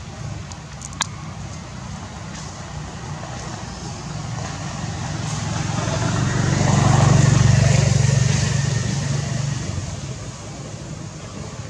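A motor vehicle driving past: its low engine rumble and road noise swell, peak about halfway through and fade away again. A single sharp click about a second in.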